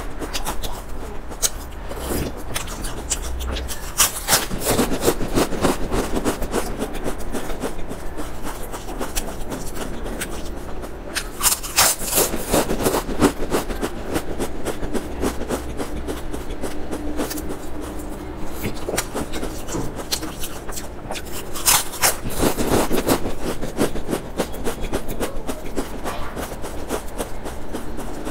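Close-miked crunching and chewing of stacked potato crisps: a dense run of crisp crackles, with louder crunches at fresh bites several times.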